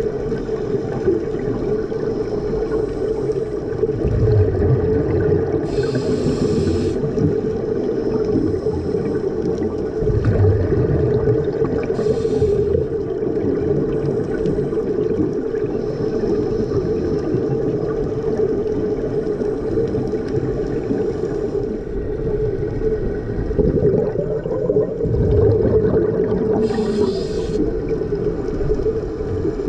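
Underwater sound through a diving camera: a steady low drone with a scuba diver's regulator breathing. There are three short hissing inhalations and low rumbles of exhaled bubbles.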